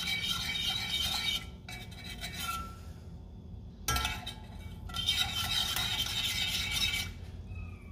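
Small wire whisk scraping and clinking against a stainless steel saucepan, stirring a simmering milk-and-flour sauce base. Two bouts of brisk whisking, with a quieter pause from about a second and a half in until about four seconds in.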